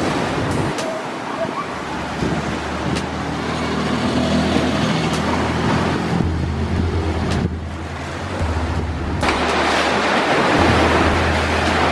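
Storm at sea: big waves surging and crashing under strong wind, with wind buffeting the microphone as a heavy low rumble. The rush eases for a moment about two-thirds in, then swells up again.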